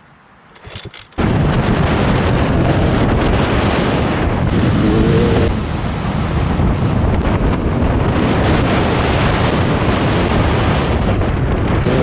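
Heavy wind buffeting on a helmet-mounted camera's microphone while riding a dirt bike along a trail, with the bike's engine running underneath. It starts abruptly about a second in.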